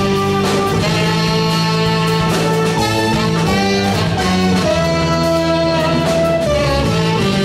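Live band playing an instrumental: a saxophone carries the melody, with a long held note in the middle, over electric keyboard and a drum kit with cymbals.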